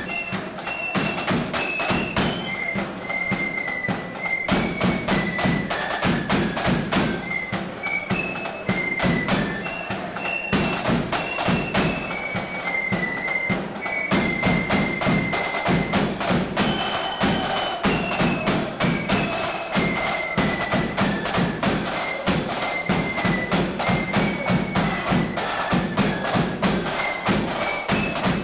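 Marching flute band playing a tune: flutes carry a high melody over busy snare drumming and a heavy bass drum beat.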